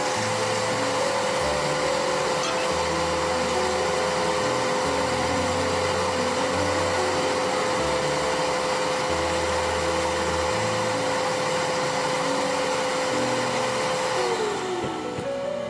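Shop vacuum or dust extractor motor running steadily with a high whine, then switched off about 14 s in, its pitch falling as it spins down. Quiet background music plays underneath.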